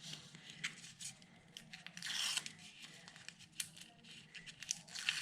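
Thin 3D foam tape and cardstock being handled: short clicks and rustles, with a longer tearing or peeling rasp about two seconds in and another near the end.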